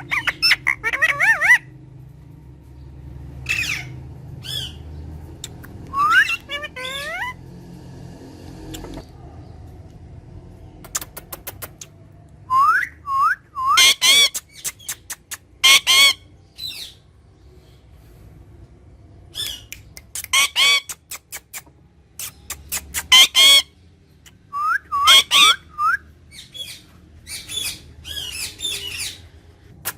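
Pet parrot squawking and whistling: short, loud, harsh calls come every second or few, mixed with quick rising whistles.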